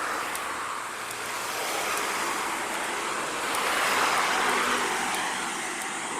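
Steady rushing wind and road noise from riding a road bike, swelling a little about four seconds in.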